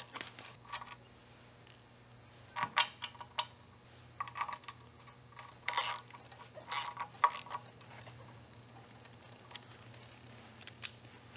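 Socket ratchet wrench tightening the end-plate bolts of a power sweeper's brush drum: a bright metallic clink about half a second in, then scattered short groups of ratchet clicks and metal-on-metal taps.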